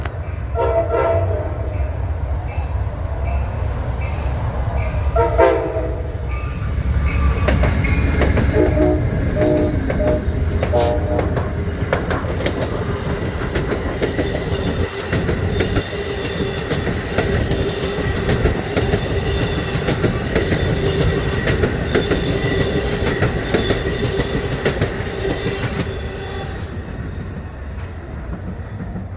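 Train horn sounding several blasts as a train approaches, then the train passing with a steady rumble of wheels on rail and fast clacking over rail joints, easing off near the end.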